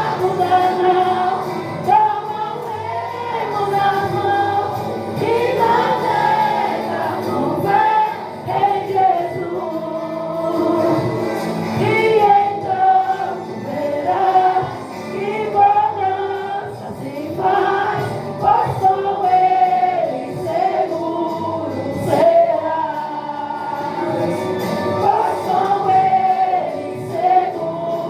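A group of young voices singing a Portuguese gospel song together as a choir over musical accompaniment, the sound of a large hall around them.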